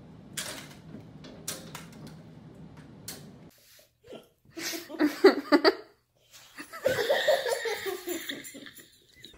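A few light taps, then a person laughing in short bursts about five seconds in, with a longer, drawn-out laugh near the end.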